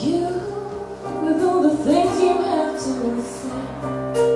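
Live acoustic music: a singer carrying a melody over sustained instrumental chords.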